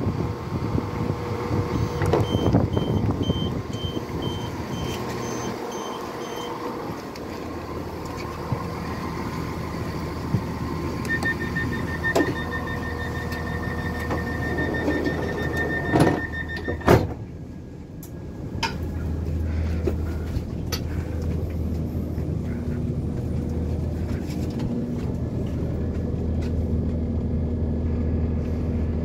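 Class 170 Turbostar diesel multiple unit at a platform: its doors beep a pulsed warning as they open, then a second beeping warning runs for several seconds and ends in two sharp knocks as the doors close. After that the unit's diesel engine hums steadily, heard from inside the carriage.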